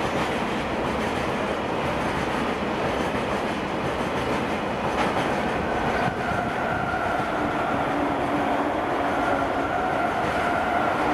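Freight train of Taki 1000 tank wagons rolling steadily past: a continuous rumble of steel wheels on rail. A steady high whine joins in about halfway through and holds.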